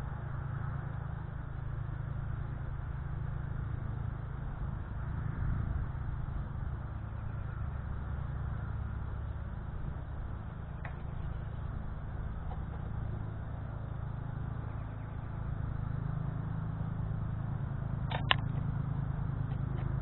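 Steady low outdoor rumble, with a few faint clicks and one sharp double click about 18 seconds in, as an American goldfinch pecks at seed on the feeder tray beside the microphone.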